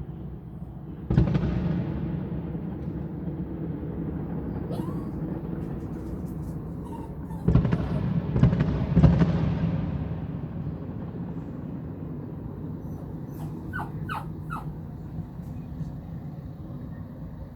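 Fireworks shells bursting with heavy booms that rumble and echo away: one about a second in and two more close together around the middle. Near the end a dog barks three quick times.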